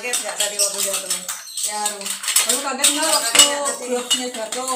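Hard plastic Uno Stacko blocks clattering and clicking against each other and the tabletop as they are handled, stacked and knocked over, with people's voices over the clatter.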